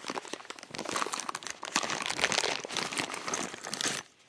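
Packing material crinkling and rustling, dense and irregular with small crackles, as a boxed engine stand and its parts are unpacked; it breaks off abruptly just before the end.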